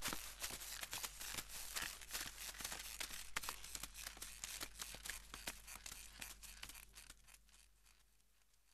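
Footsteps and load-creak of several people walking with shoulder poles: quick, crisp clicks and rustles, several a second, fading out near the end as they move away.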